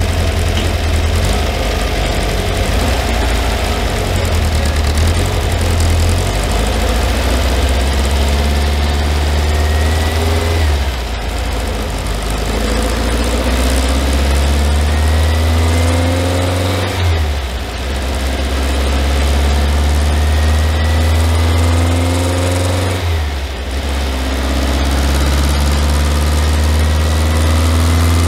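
Classic Volkswagen Beetle's air-cooled flat-four engine run hard on a chassis dyno, revving up through the gears in a climbing pitch, with short dips where it shifts, about eleven, seventeen and twenty-three seconds in.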